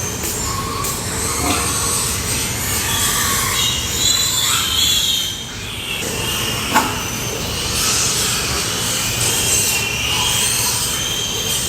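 Pigs squealing: high, wavering calls over a steady noisy background, with one sharp knock about seven seconds in.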